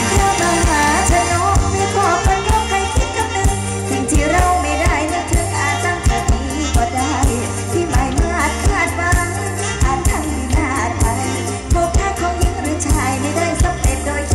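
Live Isan mor lam music from the stage: a singer's wavering, ornamented vocal line over an amplified band with a steady bass beat.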